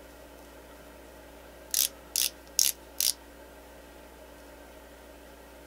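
Maybelline Age Rewind concealer's twist barrel clicking as it is turned to push product up into the sponge tip of a new, unused tube. Four sharp clicks, about two a second, starting nearly two seconds in.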